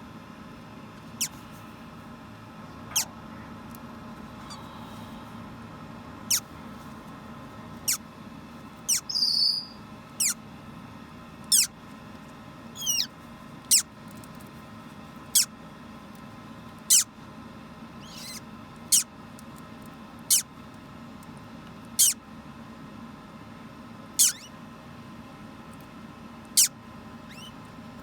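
Hatching parrot chick peeping: short, sharp, high calls about every one and a half to two seconds, several falling in pitch, over a faint steady hum.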